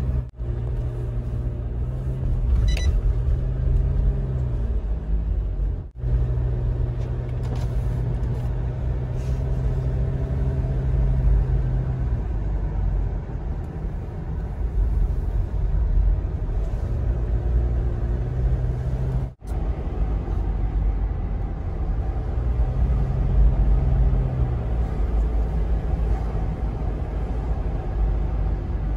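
Car being driven, heard from inside the cabin: a steady low engine and road rumble whose hum shifts in pitch as the speed changes. The sound cuts out briefly twice, around six and nineteen seconds in.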